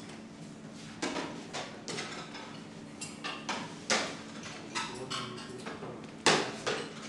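Trays, plates and cutlery clattering as people serve themselves at a canteen buffet: a string of irregular knocks and clinks. A low steady hum sits underneath.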